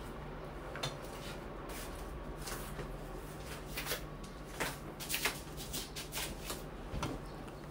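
Faint, irregular clinks and knocks of dishes and kitchenware being cleared away and set down, over a steady low hum.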